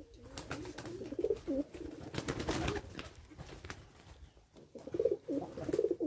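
Domestic racing pigeons cooing in low, warbling coos, in bouts about a second in, around two and a half seconds and again near the end, with scattered sharp clicks in between.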